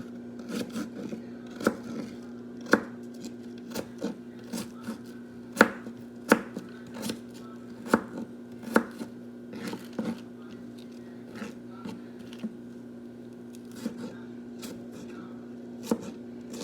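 Knife chopping onions on a cutting board: irregular sharp knocks with short pauses between strokes, over a steady low hum.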